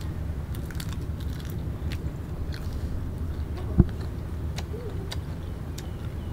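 Biting into and cracking the shell of a cooked mantis shrimp: scattered small crunches and clicks, with a single sharp low thump about four seconds in, over a steady low rumble.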